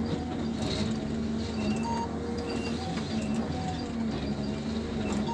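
Forestry harvester running as its head works a log, heard from inside the cab: a steady engine and hydraulic hum with whining tones that cut in and out and change pitch, and a few sharp knocks.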